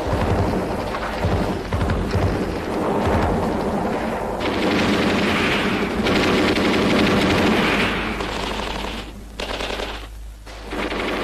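Sustained rapid machine-gun and rifle fire of a battle, with shots overlapping densely and briefly easing twice near the end.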